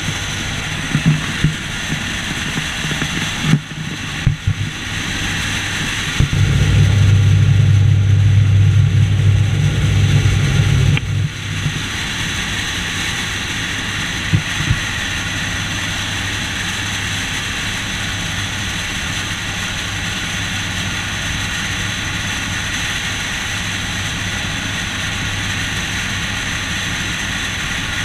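Steady drone of a skydiving jump plane's engines and airflow heard from inside the cabin, with a louder low rumble for about five seconds starting six seconds in and a few brief knocks.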